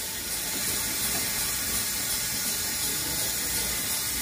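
A brush scrubbing a car's brake drum, a rough rasping, over the steady hiss of a parts washer's cleaning fluid running.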